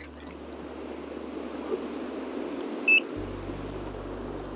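A single short electronic beep from a digital trigger pull gauge, about three seconds in, with a few light clicks of the gauge and pistol being handled over a steady background hiss.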